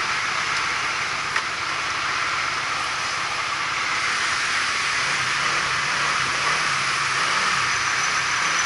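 Heavy diesel trucks running at a construction site, concrete mixer trucks and a concrete pump truck, as a steady hissing mechanical noise, with a low engine hum that grows stronger about halfway through.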